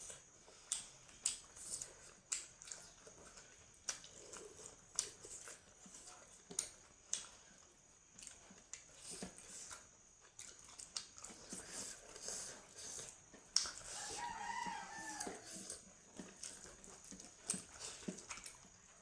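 Close-up mouth sounds of eating: wet chewing and lip-smacking clicks. A rooster crows once in the background, about three quarters of the way through.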